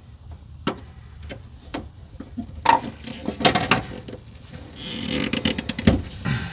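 Clicks, knocks and clatter of hand tools working the hose clamps on a car's fuel filter hoses, with a quicker run of rattling clicks about halfway through.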